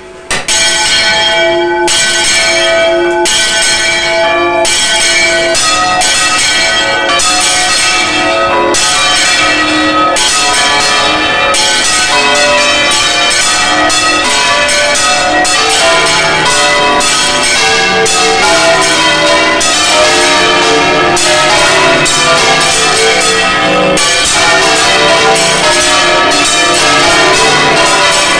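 Large cathedral bells swung full circle by hand (Spanish manual volteo), their clappers striking again and again in a loud, close, overlapping peal. More bells join as it goes on, with lower-pitched ones coming in about halfway.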